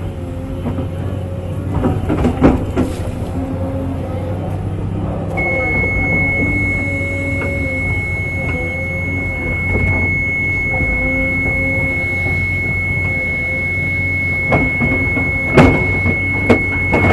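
Cat 325D excavator's six-cylinder diesel engine and hydraulics working under load, heard inside the cab: a steady low drone with a wavering hydraulic whine. A thin high whine comes in about five seconds in, and a few sharp clunks sound about two seconds in and near the end as the bucket digs.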